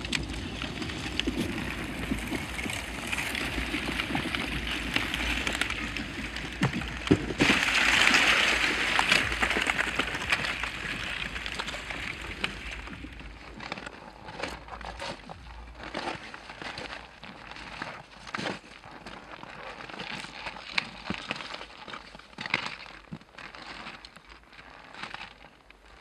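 A steady rushing noise, loudest about a third of the way in, dies away about halfway through. It gives way to a run of crunches and knocks from boots and a loaded touring bicycle's tyres on broken lake ice and snow as the bike is pushed over a crack.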